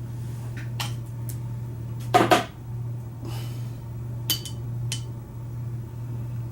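Sharp metallic clicks and knocks as a gutted Kwikset doorknob lock cylinder is handled and its pins and master wafers are dumped out. The loudest is a quick cluster of knocks about two seconds in, and there are two light ringing clinks later. A steady low hum runs underneath.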